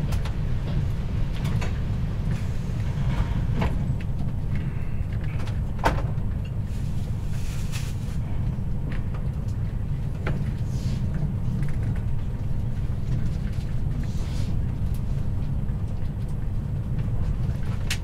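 Passenger train running along the line, heard from inside the carriage: a steady low running rumble, with scattered clicks and knocks from the wheels and running gear.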